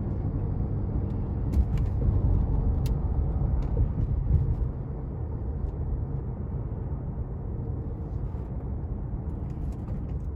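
Strong, gusty desert wind rumbling and buffeting against the microphone during a dust storm, with a few sharp clicks and rattles about two seconds in and again near the end.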